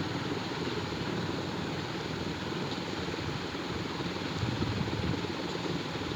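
Hot sesame oil with mustard seeds bubbling and sizzling steadily in a pan; water left in the oil is boiling off, and the mustard seeds have not yet begun to pop.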